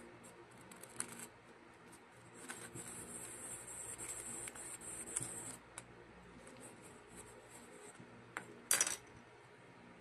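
Plastic spoon scraping and scooping kinetic sand clay in a plastic tub: a scratchy rustle with small clicks, in two stretches. Near the end comes a sharp clack, the loudest sound.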